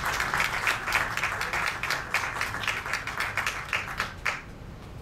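Audience applauding with dense clapping that thins out and stops about four and a half seconds in.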